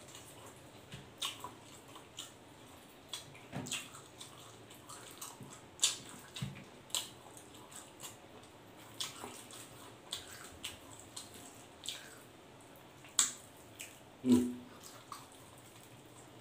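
Close-up eating sounds of a man eating roast pork leg and rice by hand: irregular wet smacks and clicks from chewing and lips, along with fingers pulling the meat apart. The sharpest smacks come about six seconds in and again near the end.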